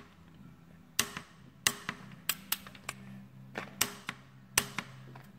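Click-type torque wrench on a motorcycle's oil drain plug giving about eight sharp metallic clicks, irregularly spaced, as the plug is tightened to its 43 N·m setting.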